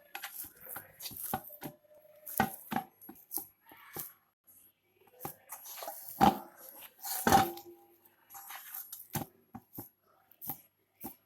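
Knife chopping on a cutting board in uneven strokes, with a few louder knocks among lighter taps.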